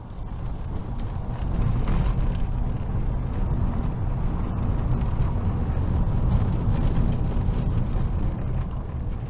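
Steady low rumble of road and engine noise inside a moving car, swelling over the first second or two and then holding steady.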